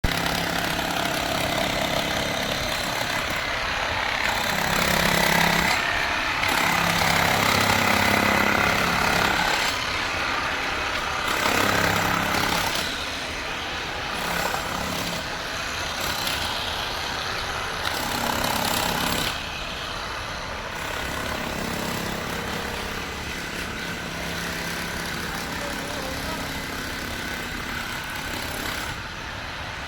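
Electric demolition hammer running continuously, its rapid chiselling blows making a dense rattle over a low motor hum; louder in the first half, then easing off from about halfway.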